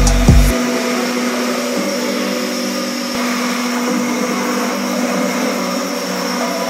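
CNC router spindle and dust collection running, a steady whine over an even hiss. A burst of music ends about half a second in.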